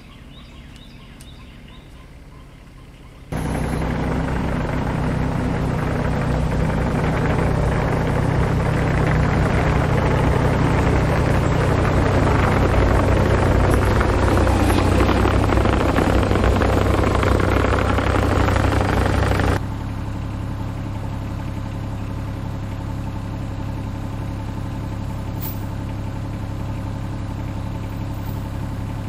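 A John Deere 26G mini-excavator's diesel engine starts running loud about three seconds in, a steady engine hum with machine noise on top. It then drops suddenly to a quieter, steady engine idle.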